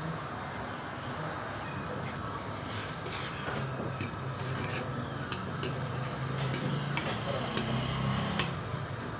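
Water with vermicelli boiling in an aluminium saucepan over a gas burner, a steady bubbling hiss. From about three seconds in, a spoon clinks lightly against the pan several times as the vermicelli is stirred.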